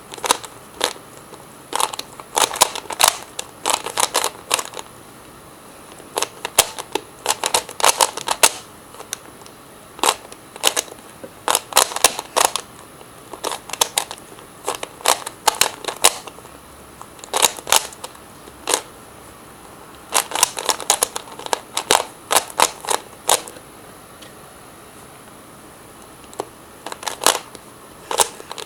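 Plastic Rubik's Cube being twisted by hand: layers turning with sharp clicking and rattling, in quick bursts of several turns with pauses of a second or two between them.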